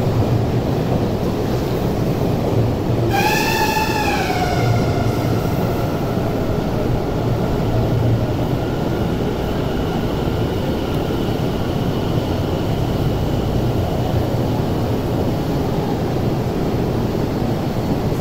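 Subway train pulling into the platform and braking to a stop, with steady running rumble. About three seconds in, a whine rises slightly, then falls in pitch and fades as the train slows.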